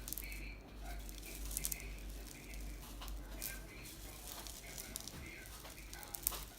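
Packaging being handled: irregular rustling and crinkling with scattered light clicks, over a faint steady low hum.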